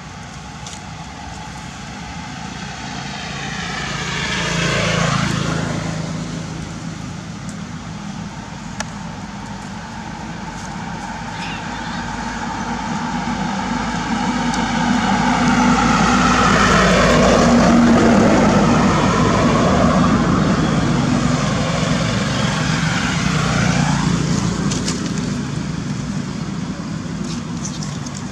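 Motor vehicles passing by on a road, each one swelling and fading with a falling pitch as it goes past. One passes about five seconds in, a longer and louder passage comes in the middle, and another falls away near the end.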